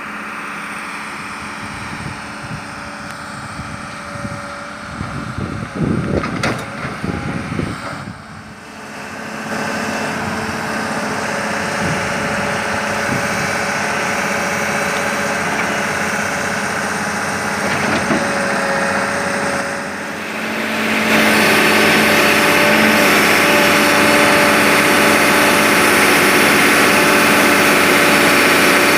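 Sumitomo S280 excavator's diesel engine running steadily under hydraulic work, with a cluster of knocks about five to eight seconds in. The engine grows louder about nine seconds in and again about twenty-one seconds in, holding the higher level.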